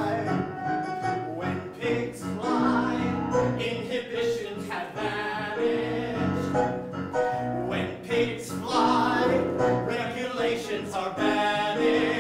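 Show-tune music: male voices singing with an electronic keyboard accompaniment.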